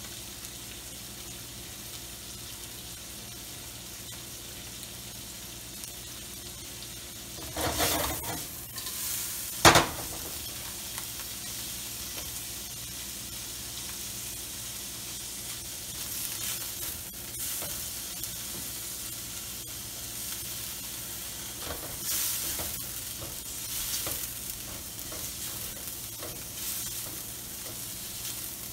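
Shrimp sizzling in oil in a nonstick wok, stirred and turned with a spatula, with scrapes of the spatula on the pan. A sharp knock about ten seconds in is the loudest sound.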